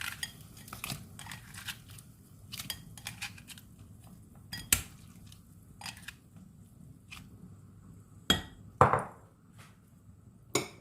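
Kitchen utensils and dishes clinking and knocking against a cooking pot as shrimp go into the soup: scattered light clicks, with a few louder knocks about halfway through and near the end.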